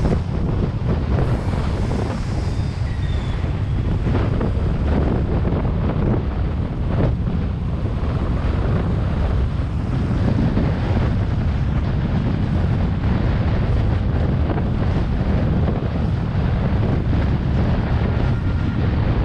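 Wind buffeting the microphone of a camera moving along a road: a steady low rumble with brief gusts, over road and traffic noise.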